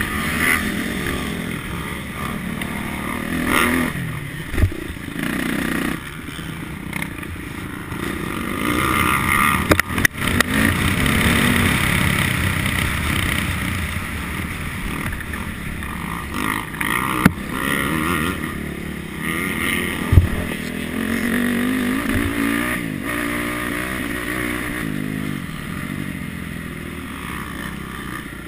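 Motocross bike engine heard from the rider's helmet camera, revving up and down through corners and straights as it is ridden round a rutted track. A few sharp knocks cut in as the bike hits bumps.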